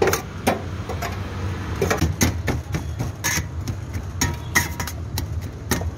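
Metal spatula chopping and scraping shaved doner-style chicken in a stainless-steel tray: a run of sharp, irregular clanks and taps, about two or three a second, over a steady low hum.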